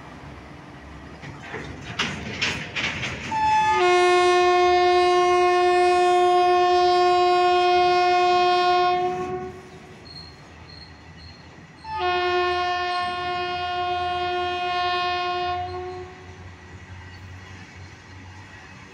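Freight train running past: wagons clattering over the rail joints with a steady rolling rumble, and two long blasts of the WAG-5 electric locomotive's horn, the first about six seconds long starting a few seconds in, the second about four seconds long in the middle.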